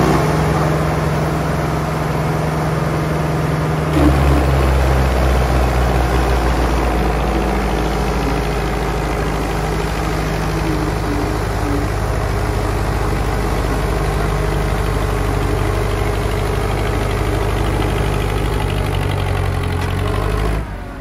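Two diesel tractors, one a Sonalika, running hard against each other in a tug of war, coupled by a tow strap. About four seconds in, the engine note deepens and grows louder as they come under full load, holds steady, then drops away just before the end.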